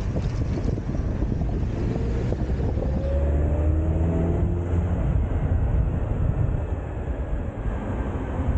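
Open-top convertible car driving, with the engine and road noise running as a steady low rumble and wind buffeting the microphone. From about two seconds in, the engine note climbs for a couple of seconds as the car accelerates.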